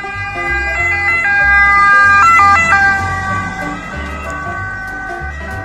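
Ambulance siren sounding, its pitch stepping between two notes.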